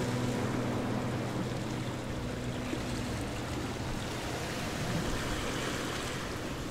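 Steady rushing noise of wind on the microphone, with the tail of background music fading out in the first few seconds.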